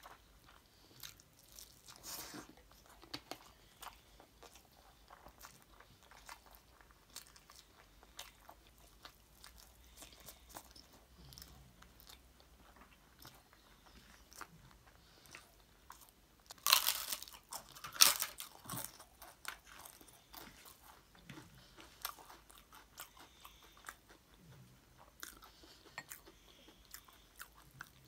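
Close-up chewing of rice and curry eaten by hand, with soft wet mouth sounds and small crunches, and a loud burst of crunching bites about two-thirds of the way through.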